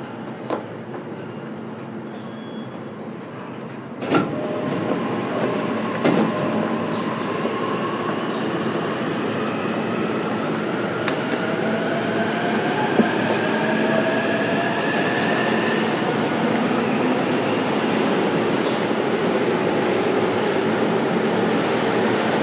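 Onboard running sound of a JR East E233 series electric train, heard in motor car MoHa E233-7433: rail and wheel rumble with a sharp knock about four seconds in, where the noise steps up louder. From about ten seconds in, the motors' whine rises in pitch for several seconds as the train gathers speed, and the running noise keeps building.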